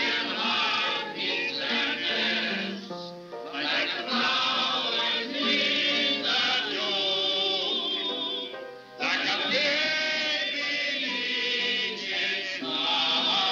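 A group of men and women singing a sentimental song together in chorus from songbooks, with wavering vibrato. The singing breaks off briefly about nine seconds in, then picks up again.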